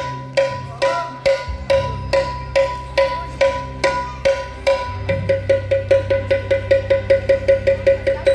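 Dholki drum solo with percussion backing: even strokes about two a second that double to about four a second around five seconds in, over a low held bass note that shifts in pitch.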